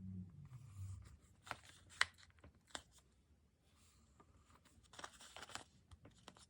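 Stickers and paper being handled on a diary page: a few sharp taps and clicks in the first three seconds, the loudest about two seconds in, then a short papery rustle about five seconds in.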